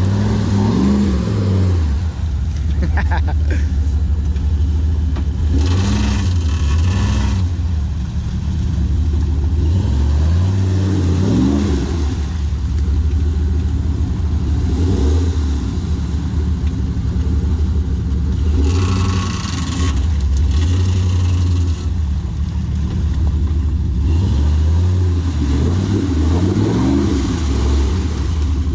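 Off-road vehicle's engine running under load and revved up and down several times. There are two bursts of rushing noise, about a fifth of the way in and again past halfway.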